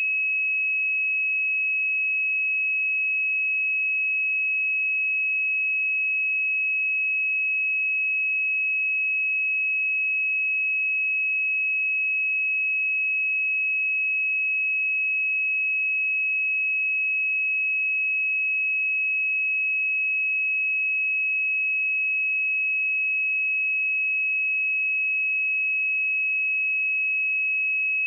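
A steady 2566 Hz pure sine-wave test tone, one unchanging high pitch held at constant level.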